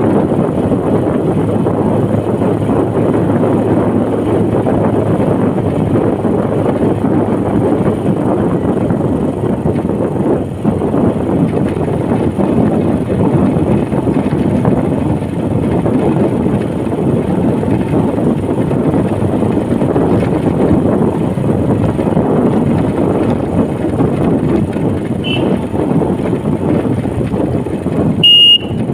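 Steady rumble of road, engine and wind noise from riding a motorcycle, with a short, loud high beep near the end.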